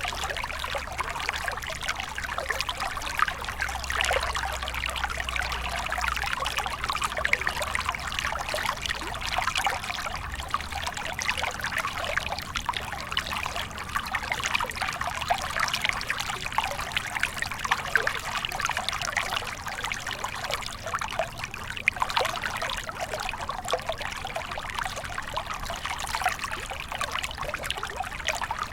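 A small stream flowing and trickling over stones: a steady, even babble of water with constant small splashes.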